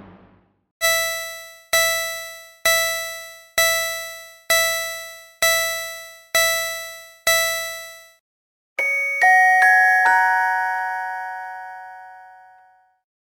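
A bell-like chime tone struck eight times at the same pitch, about one strike a second, each fading before the next. Then a quick run of several chime notes at different pitches, left to ring together and slowly fade away.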